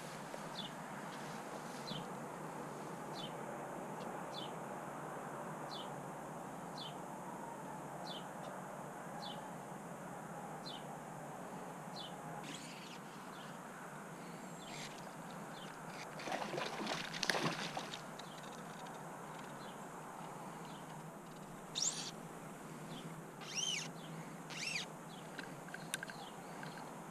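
Songbirds calling over a steady outdoor rush: a short high chirp repeated about once a second through the first half, then several louder, sweeping calls near the end. A brief rustle, the loudest sound, comes just past the middle.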